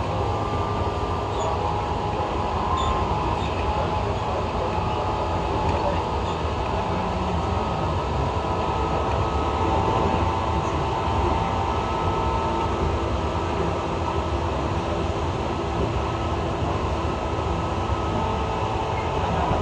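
A moving train heard from inside the passenger car: a steady running rumble of the wheels on the rails, with faint steady tones above it.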